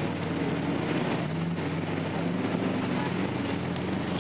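Off-road 4x4 engine running steadily under load, heard from inside the cab while fording water, with small rises and falls in pitch.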